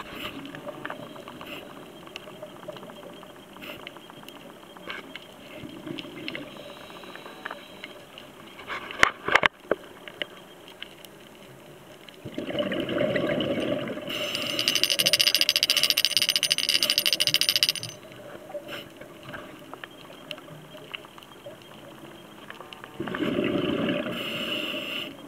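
Scuba diver's regulator breathing, recorded underwater: a long burst of exhaled bubbles about halfway through, starting as a low rumble and turning into a loud crackling hiss. A shorter bubble burst comes near the end, and a few sharp clicks come a little before the middle.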